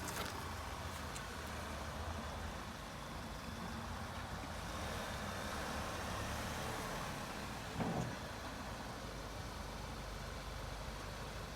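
2010 Volkswagen Passat being driven just after an oil change: steady engine and road noise, with one short louder thump about eight seconds in.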